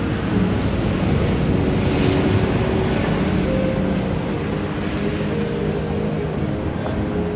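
Steady rushing outdoor noise, largely wind on the microphone, with faint held musical notes underneath that shift in pitch every second or so.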